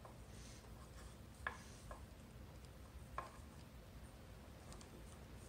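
Faint handling noise as overhand knots in the warp yarn are pulled loose at the front of a rigid-heddle loom. There are a few soft clicks, the loudest about a second and a half in, and light rustling over a low steady hum.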